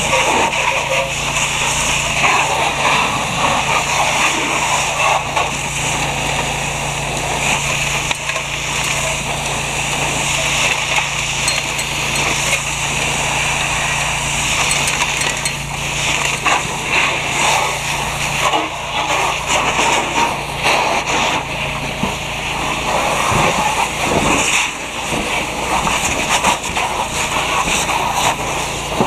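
Fire hose spraying water onto a burning car: a steady rush of spray and water striking the car, with a steady low hum beneath.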